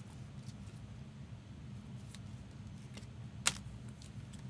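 Hands handling trading cards in plastic sleeves: faint ticks and one sharp click about three and a half seconds in, over a steady low hum.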